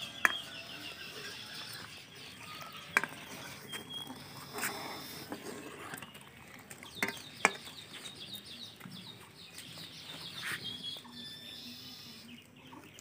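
Small birds chirping repeatedly around an outdoor yard. A few sharp clicks cut through, the loudest near the start, at about three seconds, and twice close together about seven seconds in.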